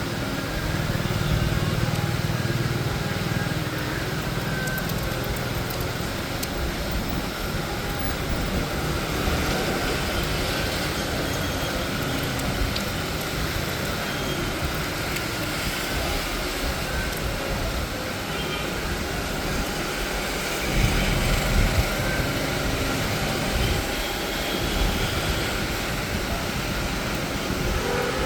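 Steady rumble and hiss of a moving vehicle, with the low rumble swelling a couple of times.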